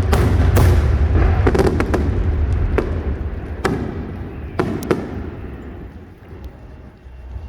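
Aerial fireworks shells bursting in a quick run of sharp bangs over a steady low rumble, the bangs thinning out and the sound dying down over the last couple of seconds.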